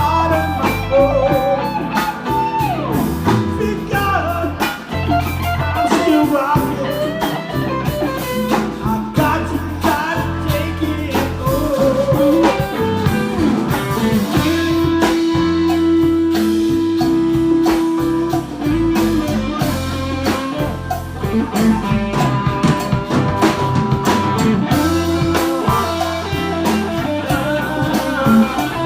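A live band playing: a guitar lead over bass and a drum kit, with one long held note about halfway through.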